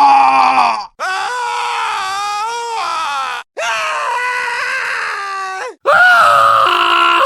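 Falling-scream sound effects: long, sustained human screams played back to back. Each one cuts off abruptly, with a short silence before the next; one scream ends about a second in, and three more start after it.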